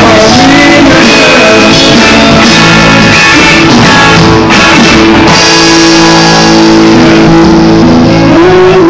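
Live rock band playing, with electric guitars and drums. From about halfway through it settles onto a long held chord as the song closes.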